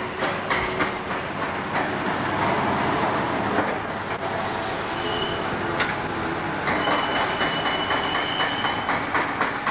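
Old trolleybuses and cars passing in city street traffic, with a steady rumble and a rhythmic clatter of about four clicks a second. A thin high squeal comes briefly about five seconds in and again for a second and a half about seven seconds in.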